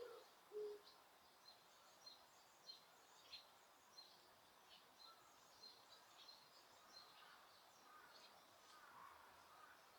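Faint wild bird calls: short high chirps repeated roughly every half second to second. There is a single short, lower-pitched call about half a second in, and some lower calls join later.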